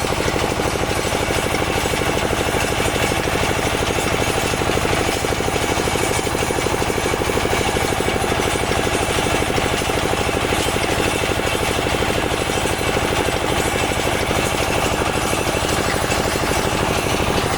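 Small soil-testing drill machine running steadily, its engine and drilling gear making a continuous rapid, even pulsing.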